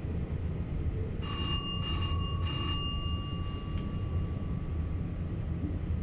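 A bell rings three quick strokes about half a second apart, the ringing hanging on for a couple of seconds before fading. Underneath, the steady low rumble of the VIRM electric double-deck train running on the track.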